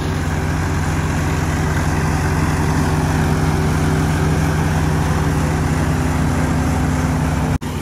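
Swaraj 855 FE tractor's three-cylinder diesel engine running steadily under load as it drives a KS straw reaper, with the reaper's threshing and blower noise mixed in. The engine note holds even, showing no change in sound under the reaper's load. The sound breaks off for an instant near the end.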